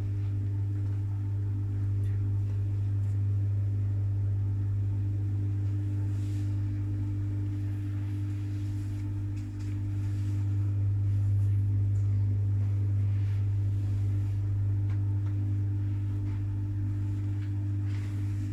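Front-loading washing machine running with a steady low hum from its drive motor, with no clear change in speed.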